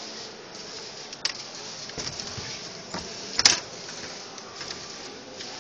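A few sharp mechanical clicks over a steady hiss, the loudest about three and a half seconds in.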